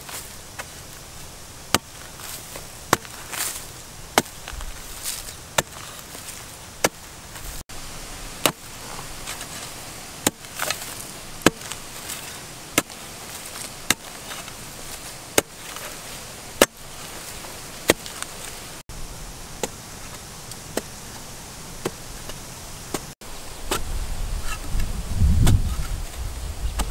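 Metal blade of a long-handled digging hoe striking dry, hard-packed soil again and again, about one blow a second, as it chops open a crab burrow. A low rumble joins near the end.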